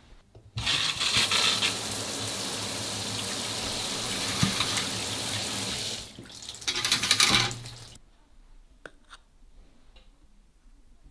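Tap water running steadily into a sink for about five seconds, filling the water chamber of a stovetop moka pot, then a second, shorter gush of running water. Near the end come two light clicks.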